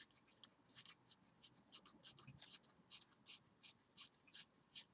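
Trading cards being thumbed through one after another as a deck is searched for a card: faint, quick swishes of card sliding on card, about three a second.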